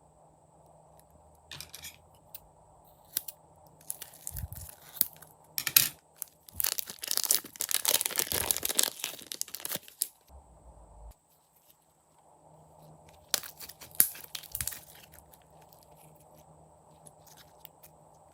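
Slime being stretched and squeezed by hand, giving crackling, tearing and crunching sounds: scattered crackles at first, a long dense spell in the middle, and a shorter spell about three-quarters through.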